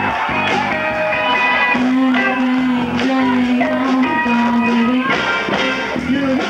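Live rock band playing, with guitar and singing; a long note is held from about two seconds in until about five seconds in.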